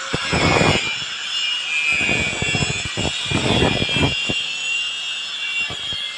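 Three rasping strokes of a hand tool working the steel spear blank, about half a second each, with a few sharp clicks between, over a steady machine whine.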